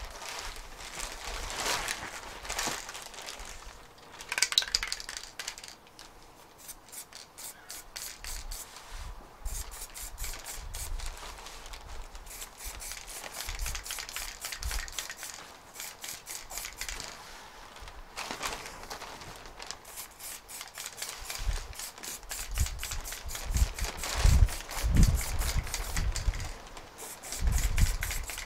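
Aerosol can of primer spraying in many short hissing bursts over body filler. A few seconds of rubbing from hand-sanding come first, and low bumps from handling come near the end.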